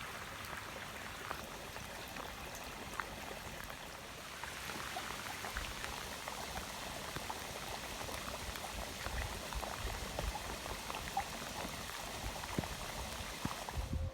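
Water pattering and trickling: a steady wash of many small drips and bubbling ticks.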